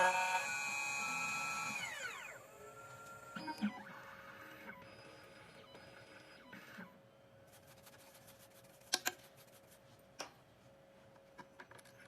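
2M2 Tank CNC key cutting machine's cutter spindle whining steadily, then spinning down with a falling pitch about two seconds in as the cut of the HU162T-10 key finishes. Afterwards a faint steady hum and a few scattered clicks.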